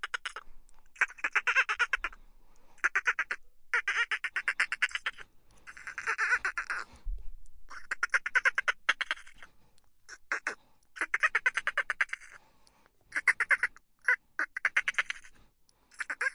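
Dolphin chatter: quick trains of clicks, each lasting about a second, repeating every second or two.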